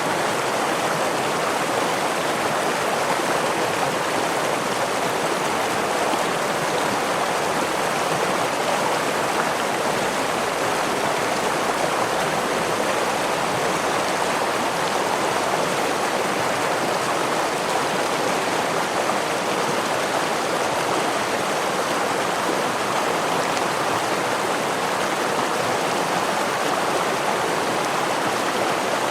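Gentle stream of running water with a small waterfall: a steady, even rush of flowing water that does not change.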